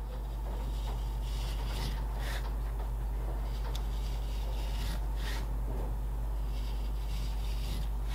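Hand work on leather: irregular rubbing and scraping strokes, a few seconds apart, over a steady low hum.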